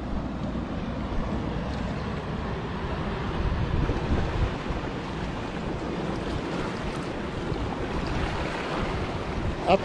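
Sea surf washing over the rocks of the shore, a steady rushing noise, with wind buffeting the microphone.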